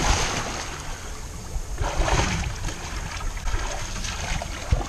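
Lake water splashing and sloshing around a swimmer beside a dock, in surges near the start and about two seconds in, with wind rumbling on the microphone.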